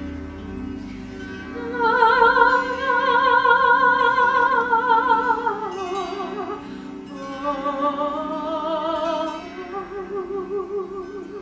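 A woman's voice singing wordless, long-held high notes with wide vibrato over a steady plucked-string accompaniment. The first note swells in about two seconds in and slides down near the middle, then two more held notes follow, the last one lower.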